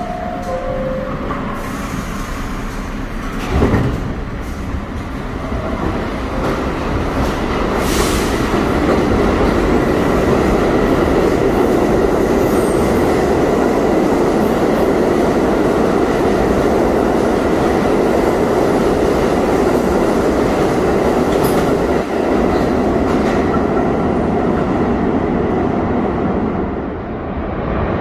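NYC subway R62A train on the 1 line pulling out of the station: a two-note falling door chime at the start, a thump about three and a half seconds in, then the train's wheel and motor noise building over the next few seconds and running loud and steady as the cars pass.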